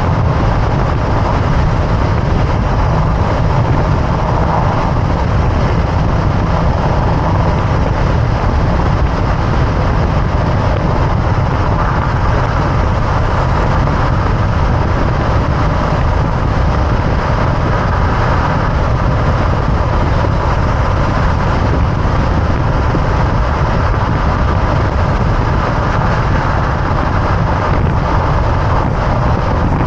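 Steady road and wind noise picked up under the front end of a moving 2024 Toyota Tacoma: tyre roar and air rushing past, loudest in the low range.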